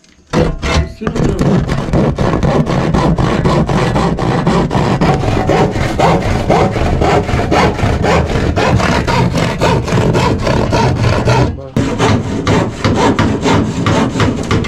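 Hand saw cutting through a plywood sheet in quick back-and-forth strokes, with a brief pause about three seconds before the end.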